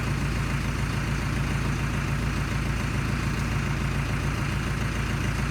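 Engine idling steadily, a low hum that holds one pitch throughout.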